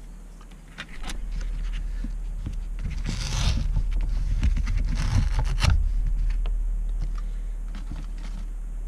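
Paper lid of an instant cup-noodle bowl being peeled back and lifted off, with two loud rustling, scraping bursts and a few small clicks, over a steady low hum that starts about a second in.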